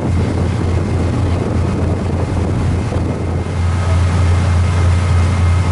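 Cruise boat's engine droning steadily with a low hum, with wind noise on the microphone over it.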